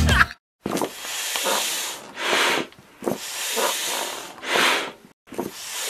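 Air hissing in repeated strokes from a foot pump through a hose: each cycle a longer hiss followed by a shorter, louder one, about three cycles in all.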